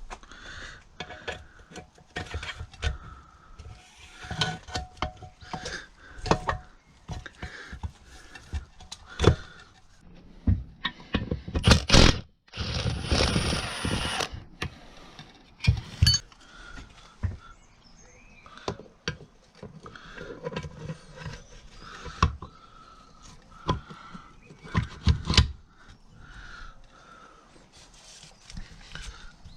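Metal clinks, knocks and scrapes of hand tools and transfer-case parts being handled during disassembly, irregular throughout, with a louder rasping noise lasting about two seconds around twelve seconds in.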